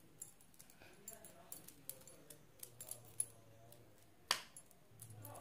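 Quiet makeup-handling sounds: faint ticks and rustles of a large bronzer brush and its compact, with one sharp click about four seconds in.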